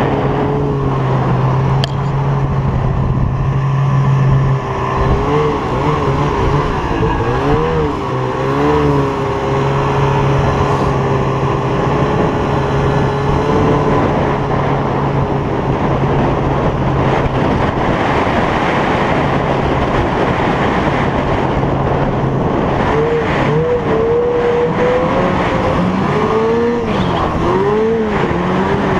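Two-stroke snowmobile engine running at a steady cruise, its pitch wavering up and down a few times as the throttle changes, several seconds in and again near the end. A constant rush of wind on the microphone runs under it.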